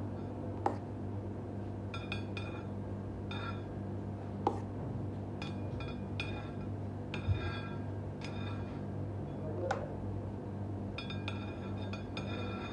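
Metal palette knife smoothing whipped cream on a cake on a metal turntable, with short ringing clinks and a few sharp taps as the blade touches the turntable, over a steady low hum.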